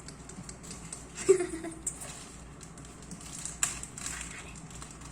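A few sharp clicks and taps of small colour containers being picked up and handled on a tabletop, with a brief hum of a girl's voice about a second in.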